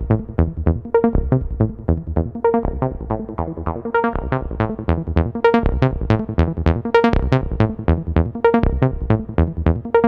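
Background electronic music: a steady run of short plucked synthesizer notes, about four a second.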